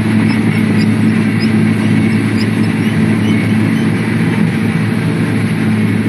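John Deere 3520 sugar cane harvester running steadily while harvesting, heard from its cab: a loud, even machine drone with a constant low hum.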